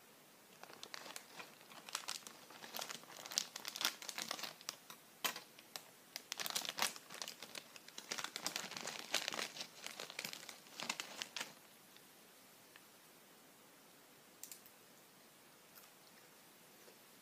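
Plastic potato-chip bag crinkling and crackling as it is handled and pulled open, a dense run of crackles that stops about eleven seconds in.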